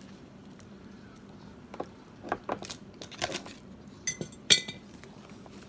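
Small fidget toys being put into a jar, clinking and knocking against it in a string of separate clicks; the loudest two, about four seconds in, ring briefly.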